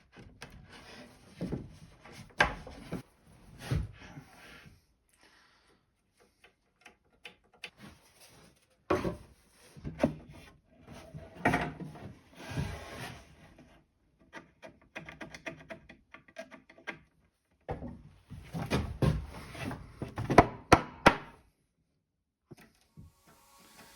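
Bird cherry boards being handled and fitted together. Irregular wooden knocks and rubbing come in several short bursts separated by brief pauses.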